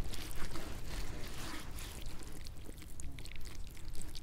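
Hands smearing marinade over raw lamb ribs: faint, scattered wet squelching and small clicks over a low rumble.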